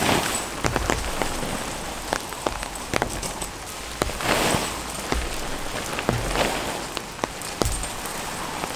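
Steady rain falling, with many drops hitting close by as sharp ticks; the rain swells louder briefly a few times.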